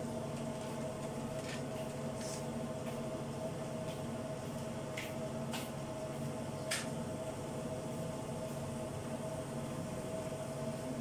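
A steady machine-like hum with a constant tone, broken by a few short light clicks about two, five and seven seconds in.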